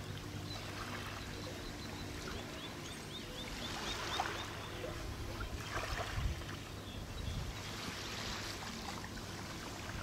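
Harbour shoreline ambience: a steady low engine hum from a distant boat, with soft lapping of water. A quick run of high bird chirps comes about two and a half seconds in.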